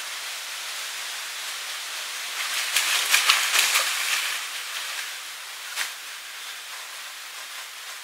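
Red deer wading into a shallow, muddy puddle: a run of splashy, crackling steps in the water from about two and a half to four seconds in, and a single sharp splash or click near six seconds. Under it all runs a steady hiss.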